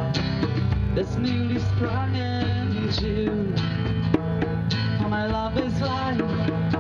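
Live folk song: a woman singing with strummed acoustic guitar, a steady bass line underneath and a hand drum.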